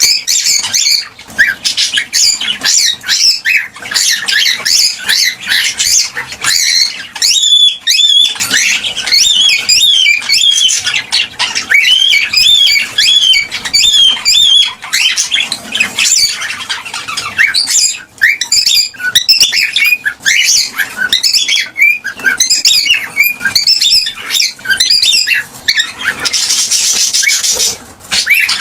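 Gray cockatiel chirping in a fast, continuous run of short rising and falling calls. A brief rustling hiss comes near the end.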